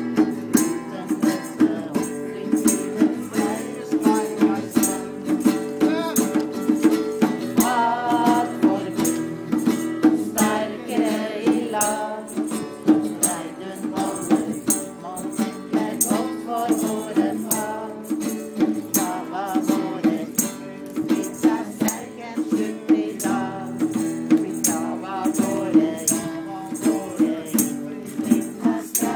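Group singing: a crowd sings a song along with a lead singer over a PA system, backed by an acoustic guitar and rattling hand percussion keeping a steady beat.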